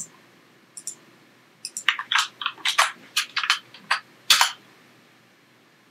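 A few mouse clicks, then a quick run of about a dozen computer keyboard keystrokes between about two seconds and four and a half seconds in.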